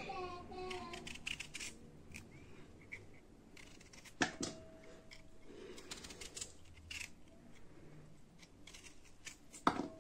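Serrated kitchen knife cutting through raw red potatoes held in the hand: faint, scattered slicing clicks. About four seconds in a sharper knock rings briefly, likely the knife or a piece against the steel plate, and another knock comes near the end.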